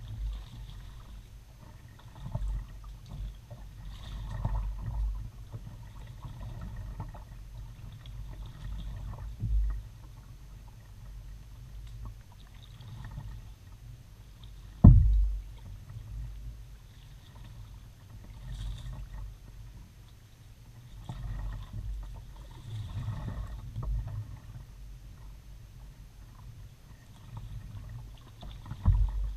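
Kayak paddling, picked up by a camera mounted on the bow: an uneven low rumble and knocking carried through the hull, with soft paddle splashes every few seconds. A single sharp knock comes about halfway through and is the loudest sound.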